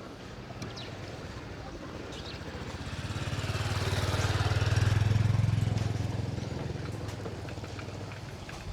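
An engine passing by: a low, steady hum that swells to its loudest about five seconds in and then fades away.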